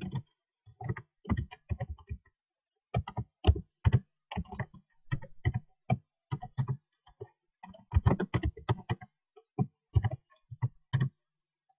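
Computer keyboard being typed on: irregular runs of individual keystrokes, each a sharp click with a dull thump, with a short break about two seconds in.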